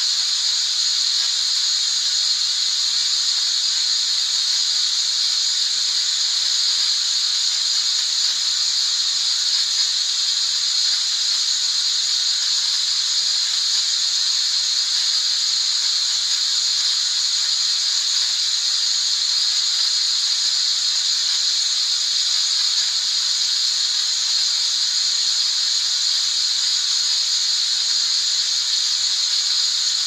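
Steady white-noise hiss, even and unbroken, strongest in the upper-middle range with little bass: a continuous sleep sound for lulling a baby.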